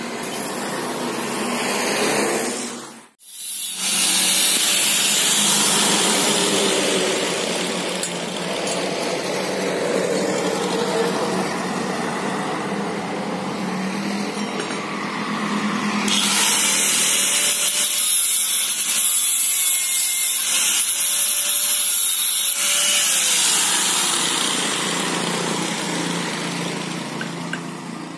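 Harsh, steady noise of power-tool metalwork on a motorbike exhaust pipe, broken off briefly about three seconds in.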